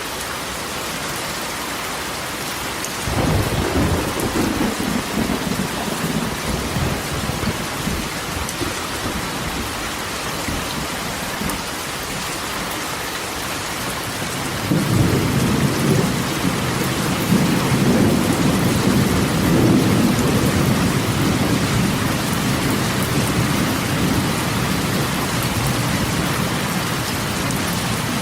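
Steady rain drumming on a corrugated metal roof, with thunder twice: a sudden low rumble about three seconds in that dies away over a few seconds, and a longer rolling rumble from about halfway through.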